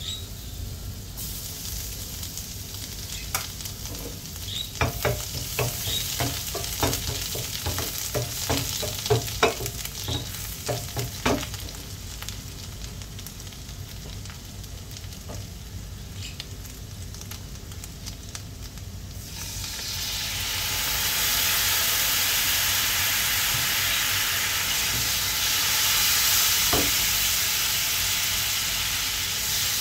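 Butter and minced garlic sizzling in a stainless steel frying pan, with a wooden spoon clicking against the pan many times between about 3 and 11 seconds in. About 20 seconds in, the sizzle grows much louder and stays loud.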